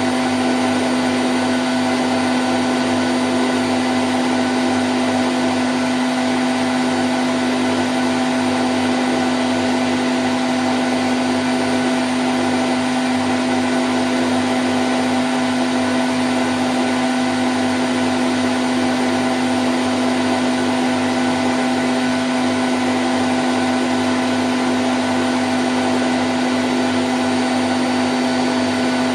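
Candy Grand O' F106 washing machine on its spin cycle at 1000 rpm: a steady, unchanging whirr of the motor and spinning drum, with a strong low hum and a few fainter steady tones above it.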